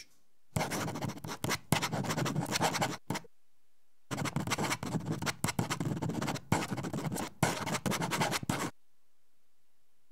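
Felt-tip marker scratching across paper in quick strokes while writing, in two stretches with a short pause about three seconds in.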